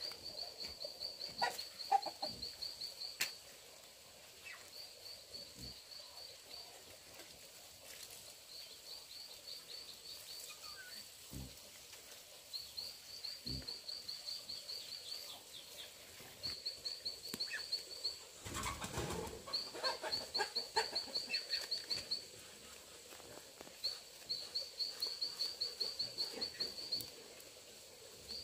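A high-pitched animal trill of rapid even pulses, repeated in bursts of one to three seconds with short gaps. A brief burst of rustling noise comes about two-thirds of the way through.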